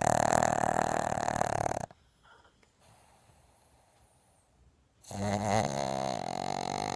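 Pug snoring loudly: one long snore, a pause of about three seconds, then the next snore begins.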